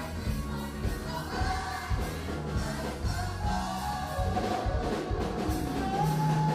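Church music: a choir singing over a band with a steady beat.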